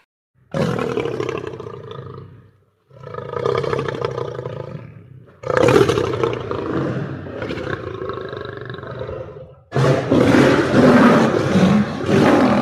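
Lion roaring: four long roars one after another, each starting suddenly and tailing off, the last two louder than the first two.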